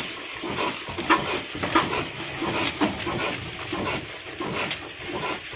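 Old single-cylinder diesel engine starting up, giving irregular sharp exhaust puffs and knocks.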